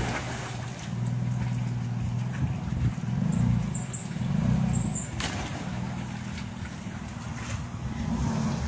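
Jeep Liberty KJ's engine running at low revs as it crawls through a rocky creek, its note swelling and easing several times with the throttle. A brief rush of noise comes about five seconds in.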